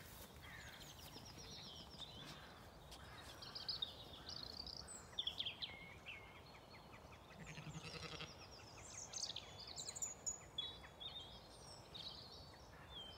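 Small birds singing, a run of high chirps, trills and repeated notes. About halfway through, a Zwartbles sheep gives one wavering bleat.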